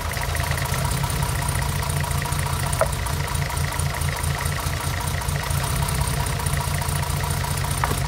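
Mercedes M110 six-cylinder engine idling with a steady, rhythmic low beat. It is running with a misfire on one cylinder, which shows no change in engine tone when its spark plug lead is pulled. Two faint clicks come about three seconds in and near the end.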